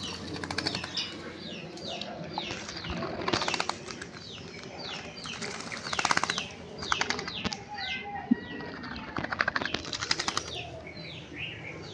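A common myna bathing in a shallow bowl of water, fluttering its wings and splashing in short bursts three times. Repeated short falling bird chirps run through it.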